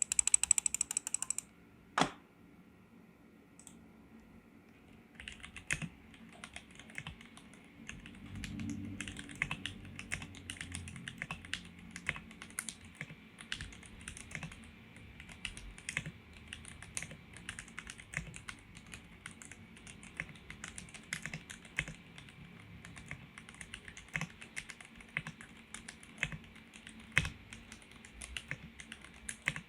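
Typing on a custom 60% mechanical keyboard with lubed Cherry MX Black linear switches in an acrylic gasket-mount case, with no foam or Dacron dampening inside. A brief loud clatter at the start and a single click at about two seconds, then steady continuous typing from about five seconds in.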